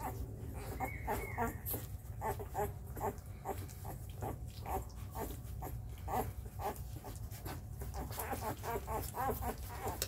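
Four-day-old Labrador puppies squeaking and grunting over and over as they jostle for their mother's teats while nursing.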